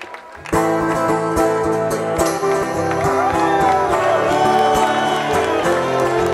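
Live band music starting abruptly about half a second in, with an amplified steel-string acoustic guitar prominent among sustained chords and a steady beat.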